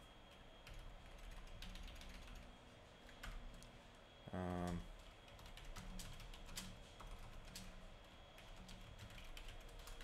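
Typing on a computer keyboard: soft, irregular key clicks. A brief hum of a man's voice comes about four seconds in.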